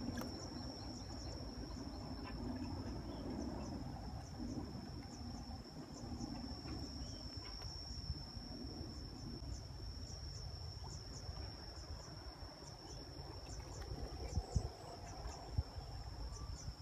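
An insect calling with one steady, high-pitched trill, with a low rumble underneath.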